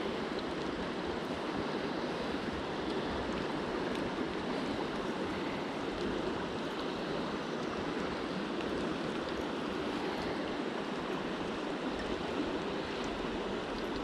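Shallow river flowing over a riffle: a steady, even rush of running water.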